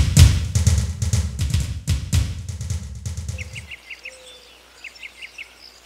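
Drum-heavy title music, fading out over the first three and a half seconds. Then faint bird chirps in short quick runs of four or five notes.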